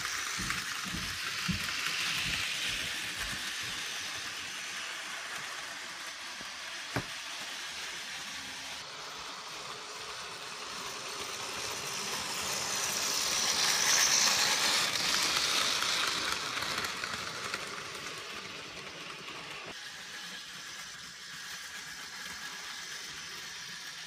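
Mainline Railways OO-gauge Dean Goods 0-6-0 model locomotive running on track with a train of freight wagons: a steady whirring hiss of motor and wheels that swells as the train comes close, loudest about halfway through, then fades. A few low regular knocks in the first couple of seconds and a single sharp click about seven seconds in.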